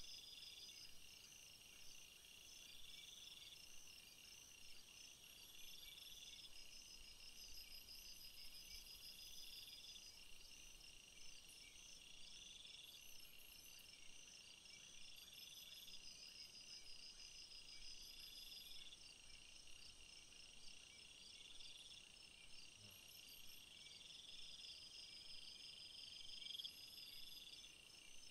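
Faint insect chorus: a steady pulsing trill, with a rising call repeated about every one and a half seconds.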